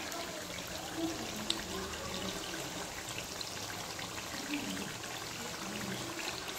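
Pork belly and taro simmering in sauce in a wok, a steady bubbling hiss.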